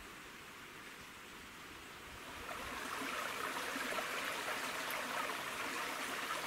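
Faint woodland background, then about two and a half seconds in a shallow stream running steadily over rocks comes up and carries on.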